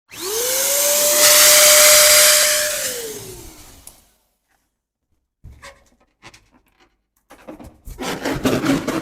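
Electric balloon pump running for about three seconds: its whine rises as the motor spins up, holds steady over a rush of air, then falls away as it winds down. After a short pause come scattered clicks, then dense rubbing and crackling of a handled balloon near the end.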